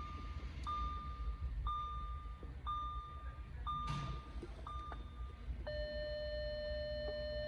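A high electronic beep repeating about once a second, five times, followed near the end by a steady, lower continuous tone that holds.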